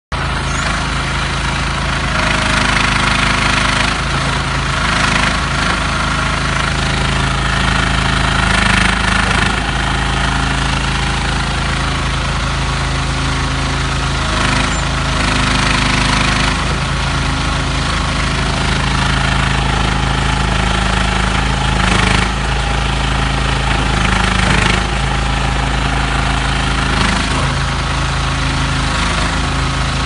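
Agrison mini excavator's engine running steadily while the machine digs. The note swells briefly several times as the boom and bucket work.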